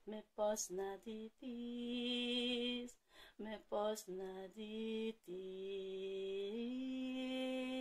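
A woman singing a Greek song unaccompanied: short sung syllables, then long held notes with a slight vibrato, the last one stepping up in pitch a little over halfway through and held.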